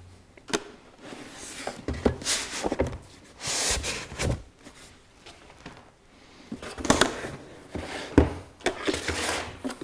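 Moulded plastic tool carrying case being handled: irregular knocks and sharp clicks, such as latches and the lid, with short spells of rubbing and rustling.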